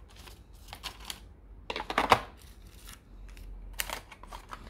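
Hands handling a phone's retail box and its accessories: scattered light clicks and rustles, with a louder cluster about two seconds in.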